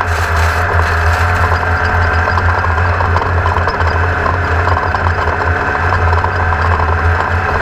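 Engine running steadily at one low, unchanging pitch, with a loud noisy hiss over it.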